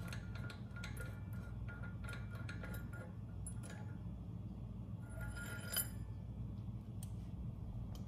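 Light clicks and clinks of small metal parts being handled at a portable generator's exposed alternator, with one brighter ringing metal clink about five to six seconds in, over a steady low hum.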